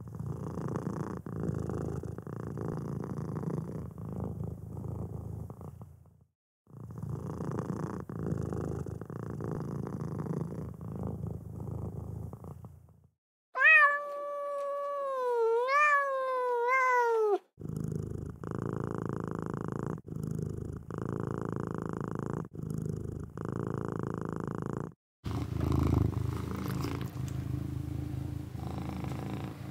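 Domestic cat purring in several separate stretches with short breaks between them. About fourteen seconds in, a single long meow wavers up and down in pitch for about four seconds.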